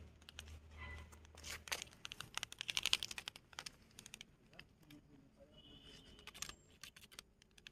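Large moth's wings fluttering and beating against a concrete floor: fast, dry, papery ticking in bursts, thickest in the first half and thinning out later.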